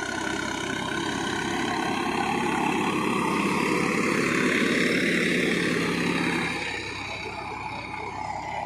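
Swaraj 960 tractor's turbocharged diesel engine running under load pulling a disc harrow, growing louder to a peak about halfway through and falling off after about six and a half seconds. It runs without the rattling noise the turbo had been reported to make.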